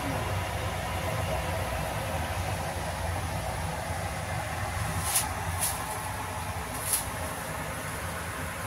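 A steady low hum with a faint hiss, broken by three short, sharp clicks a little past the middle.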